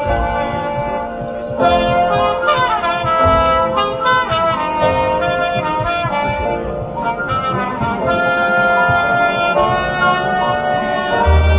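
High school marching band's brass playing loud held chords that change every second or two.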